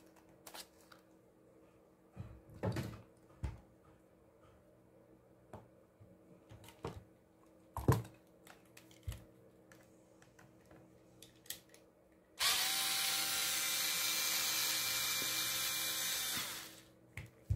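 Scattered clicks and knocks from handling plastic parts and tools, the sharpest about eight seconds in. Then a small cordless electric screwdriver runs steadily for about four seconds and stops suddenly, driving a screw into a drill's plastic housing.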